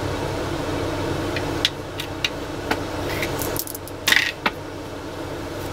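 Dice and plastic game pieces handled on a board-game board: scattered light clicks, with a short rattling clatter about four seconds in, over a steady low hum.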